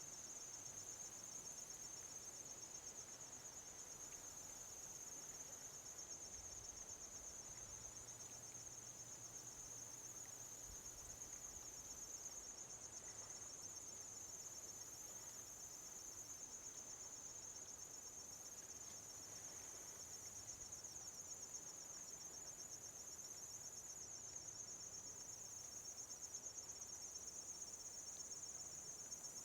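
Insects trilling steadily: one continuous high-pitched, finely pulsing chorus, over a faint background hiss.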